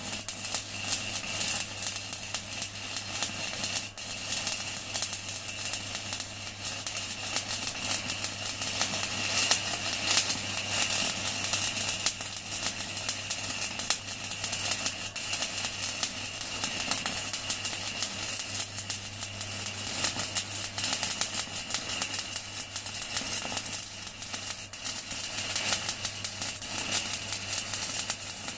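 Stick welding arc crackling and hissing without a break as a 4 mm UONI basic-coated electrode burns at 160 amps from a REDVERG RD-WM 185 MINI inverter welder, with a steady low hum underneath.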